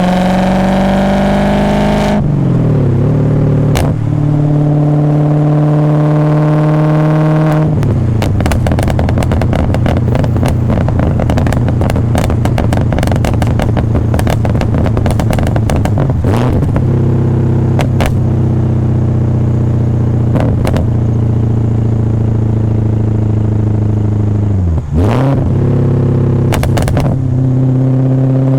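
BMW E39 540i's 4.4-litre V8 through a straight-pipe exhaust into a Summit muffler, pulling up in revs and then dropping as it shifts about two seconds in. It runs at steady revs, with a long stretch of rapid crackling partway through. Another dip and rise in revs comes near the end.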